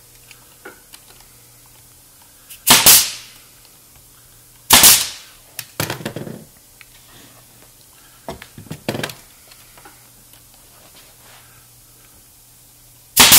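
Pneumatic 18-gauge brad nailer firing 1½-inch brads to fasten a pine spacer into a plywood frame. There are three sharp shots, two about two seconds apart and one near the end, with lighter knocks in between.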